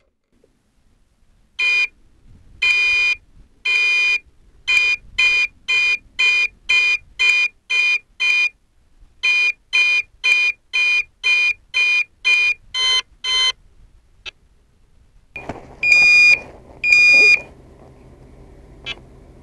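The rocket's onboard flight altimeter beeping out the apogee altitude digit by digit in a high-pitched tone: one short beep, two long beeps, then two runs of quick short beeps with a pause between, each run counting a digit. Near the end, two longer beeps sound over a steady background noise.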